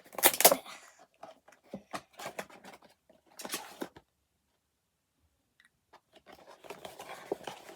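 Labubu blind-box packaging being torn and rustled open by hand: irregular crinkling, tearing and crunching, loudest just after the start, breaking off completely for over a second in the middle before the rustling resumes.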